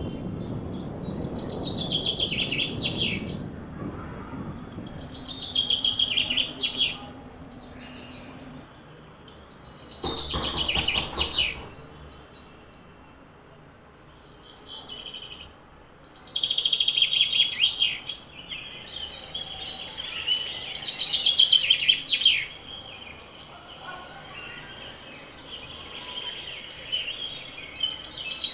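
A forest songbird repeating a loud song phrase every three to four seconds, each a rush of high chirps ending in a few quick falling whistles, with fainter bird calls between the phrases.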